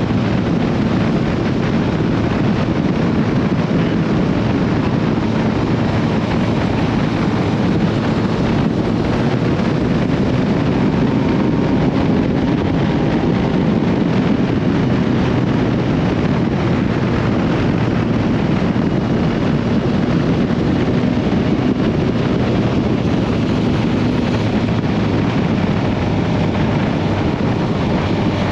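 Steady rush of wind on the microphone over the even drone of a Honda CB1300SB's inline-four engine, as when riding at a constant speed.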